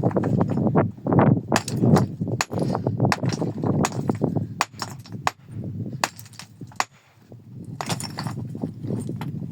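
Stones clacking and knocking against each other, with rough scraping and shuffling, as rocks are handled and stacked by hand. The knocks come irregularly, several a second at times, with a quieter spell about seven seconds in.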